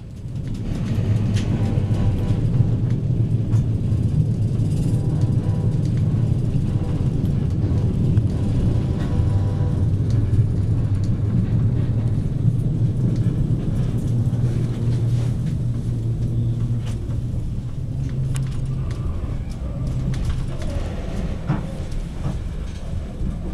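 Steady low rumble of a passenger train running over the tracks, heard from inside the coach.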